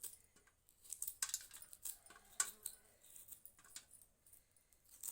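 A blade cutting through spiny gourd (khaksi) into thin slices: a string of irregular crisp cuts and clicks.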